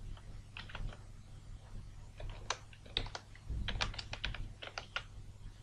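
Computer keyboard being typed on: quiet keystroke clicks in short irregular bursts, with pauses between them.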